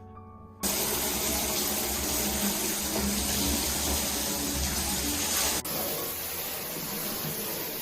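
Water running steadily, as from a tap, starting abruptly about half a second in, with a brief sudden change at about five and a half seconds.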